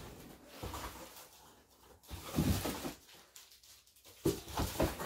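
Plastic rustling and light knocks as graded comic slabs are handled and pulled from a plastic bag, loudest about two to three seconds in.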